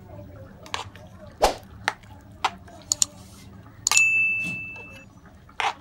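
Metal spatula knocking and scraping against the inside of an aluminium pressure cooker while stirring boiled chana dal and potatoes. Several sharp clinks, and one knock about four seconds in leaves the cooker ringing with a clear tone for about a second.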